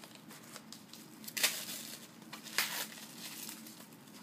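Pink tissue paper wrapping crinkling and tearing as a small package is unwrapped by hand, with sharper rustles about a second and a half in and again about a second later.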